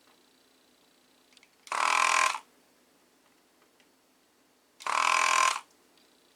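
Electric desoldering gun's vacuum pump triggered twice in short buzzing bursts of under a second each. The gun is clogged and does not draw up the solder.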